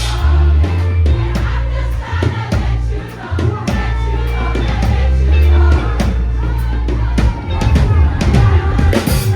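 Live gospel band music: a bass guitar playing loud sustained low notes under a drum kit, with voices singing together.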